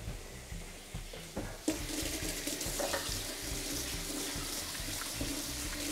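Raw steak sizzling on a hot ridged cast-iron grill pan, a steady hiss that grows louder a little under two seconds in.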